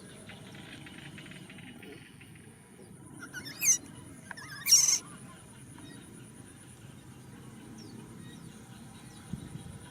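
Two short, loud, high-pitched animal calls about a second apart, the first wavering in pitch and the second a harsh screech, over a steady high tone.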